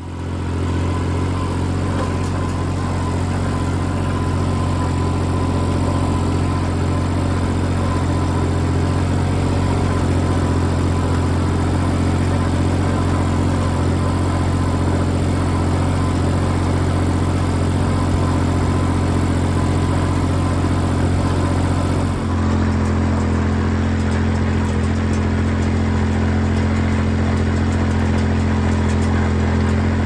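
Farm tractor engine running steadily under load while pulling a side-delivery hay rake. Its note steps to a slightly different pitch about three-quarters of the way through.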